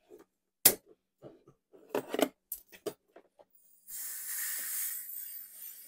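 A sharp click and a few light knocks and clicks, then compressed air hissing steadily from an air blow gun for about two seconds, starting about four seconds in.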